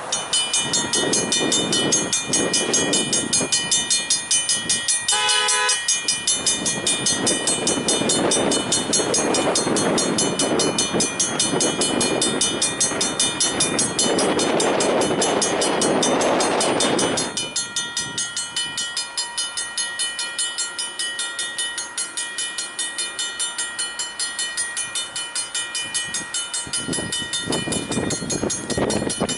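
A single diesel freight locomotive passes over a road crossing. It gives a short horn blast about five seconds in, and its engine and wheels rumble past for roughly the next ten seconds before fading. A rapid, steady ringing, typical of a crossing signal bell, runs beneath it throughout.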